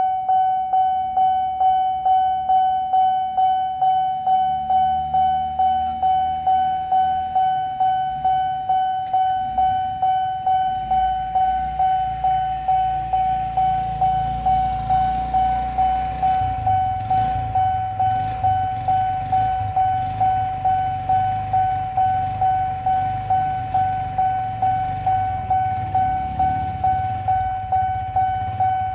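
Railway level-crossing warning bell ringing at an even rate of about two strikes a second on one ringing tone. It signals that the barriers are down for an approaching train. From about eleven seconds in, the low running of an idling engine joins it, from a bajaj auto-rickshaw waiting at the barrier.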